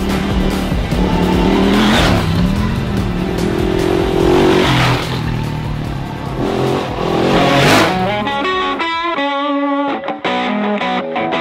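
Several adventure motorcycles riding past on a dirt track one after another, their engines rising and falling in pitch as each goes by, over background music. About eight seconds in, the engine sound drops away and the music carries on alone with a plucked-guitar passage.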